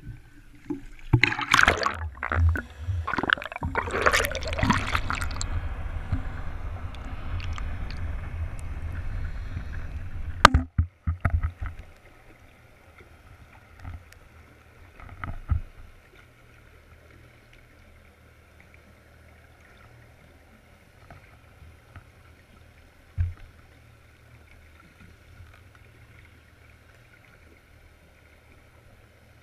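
Wind and handling noise on a camera's microphone, ending in a sharp knock about ten seconds in as the camera goes into the sea. After that comes muffled underwater ambience: a faint steady hum with a few small knocks.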